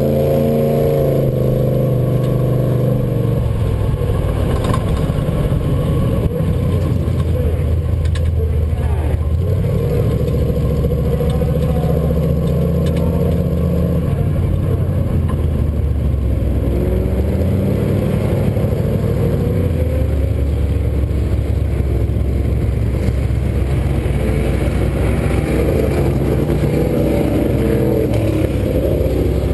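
Red Jeep push truck's engine running as it drives slowly along, its pitch rising and falling in steps with throttle and speed, over continuous wind and road rumble. Near the end, supermodified race cars running on the track join in.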